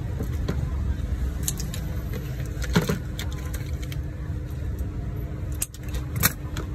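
Small salted crabs clicking and rattling against each other and the plastic tub as they are picked out by hand: a few scattered sharp clicks, the loudest a little before the middle, over a steady low rumble.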